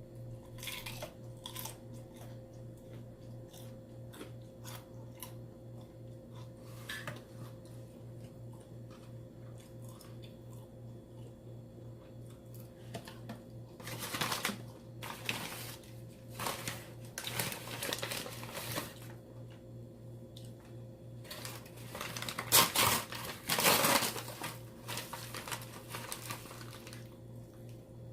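Eating noises from a takeout fried-chicken meal of gizzards and livers: the food and its container handled with crinkling, rustling and clicks, and chewing. The rustling comes in bursts and is loudest in two bursts about three-quarters of the way through, over a steady low hum.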